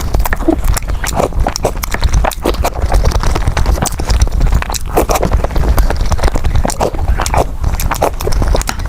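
Close-miked eating sounds: rapid wet chewing and lip smacks while eating rice porridge and soft steamed buns.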